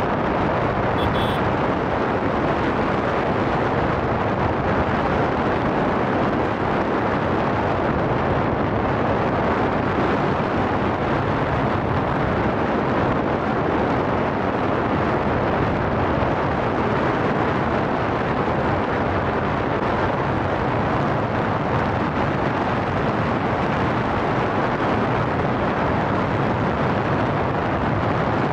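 Strong wind buffeting the camera's microphone: a steady, loud rushing noise that covers up the sound of the train on the bridge.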